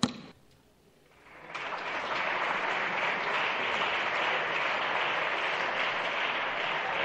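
Applause from the deputies' benches in a parliamentary chamber, starting about a second and a half in and then holding steady.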